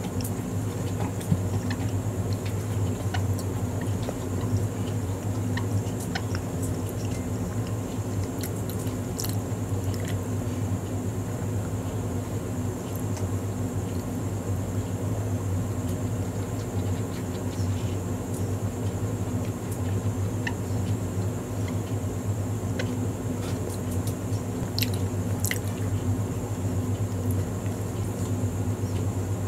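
Close-up chewing and biting of a soft burger bun, with small wet mouth clicks scattered through, over a steady low hum.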